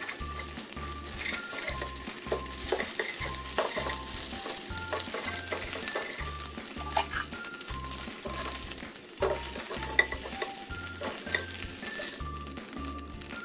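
Beaten eggs sizzling in hot oil in a wok as they fry to half-done. A spatula stirs and scrapes through them, with scattered sharp knocks against the pan. Quiet background music with a regular beat plays underneath.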